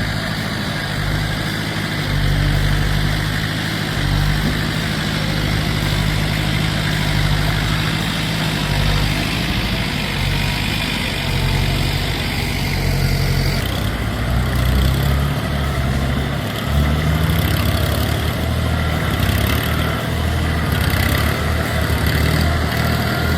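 Heavy machine's engine running steadily, with a deep low hum; the sound changes abruptly about fourteen seconds in.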